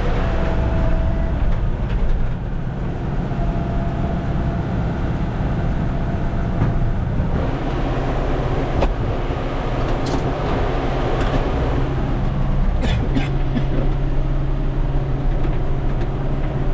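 John Deere 6110 tractor engine running steadily under load while round baling hay, with a few sharp clicks or knocks in the second half.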